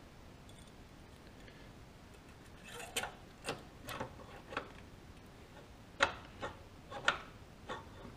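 Light metal clicks and clinks as a milling machine's knee crank handle and its spring are fitted onto the drive shaft of the power feed: about nine short taps, in two loose groups, after a quiet start.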